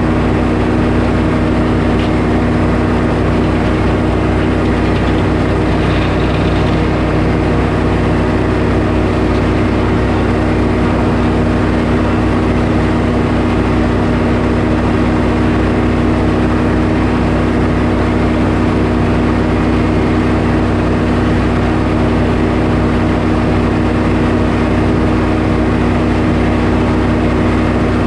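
Portable sawmill's engine running steadily at a constant speed.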